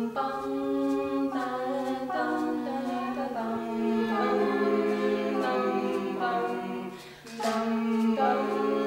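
A cappella vocal group singing chords in close harmony without instruments, the notes changing every second or so, with a short break about seven seconds in. A faint steady hum lies underneath.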